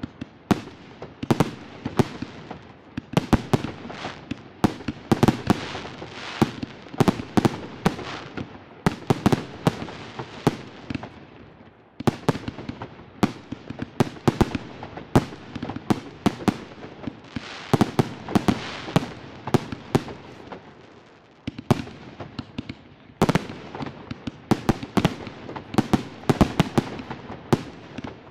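Fireworks display: aerial shells bursting in a dense, rapid run of bangs, several a second, with crackling between them. The barrage eases briefly twice, about halfway through and again about three-quarters through, then picks up again.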